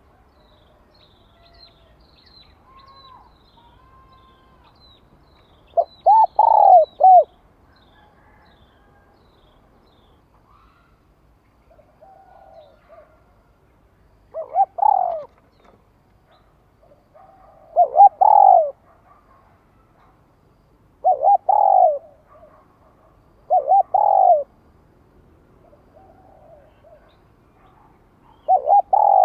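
Spotted dove cooing: six loud phrases of a few short coos each, a few seconds apart. Faint chirps of small birds sound during the first five seconds, and quieter coos come between the loud phrases.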